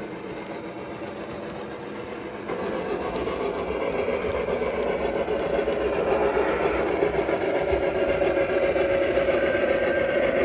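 Lionel O-gauge model freight train running on three-rail track, its metal wheels rolling steadily. It gets louder from about two and a half seconds in and keeps building as the Pennsylvania USRA 2-8-8-2 model steam locomotive draws near.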